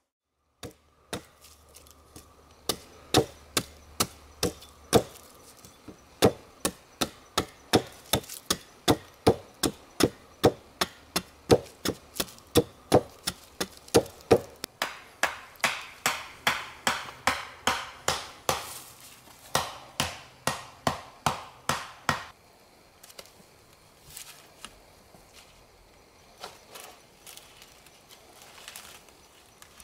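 Repeated chopping blows on a wooden pole, steady at about two a second for some twenty seconds, then a few scattered knocks.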